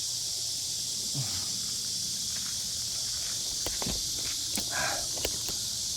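A few footsteps and small knocks and rustles, with a short scuffle a little before the end, over a steady high-pitched drone of insects.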